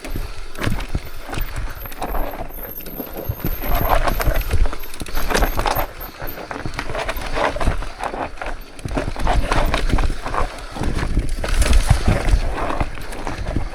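Mountain bike clattering and knocking over rocks while being ridden: irregular knocks and rattles of the frame and parts over a low rumble.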